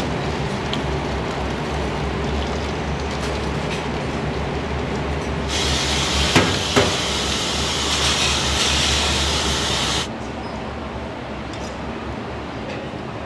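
Restaurant kitchen noise: a steady low rumble, joined about five seconds in by a loud hiss that cuts off suddenly about ten seconds in, with two sharp clinks near the middle.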